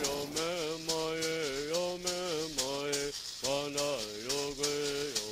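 Music: a man chanting in held notes that bend at their starts, over a steady shaken-rattle beat.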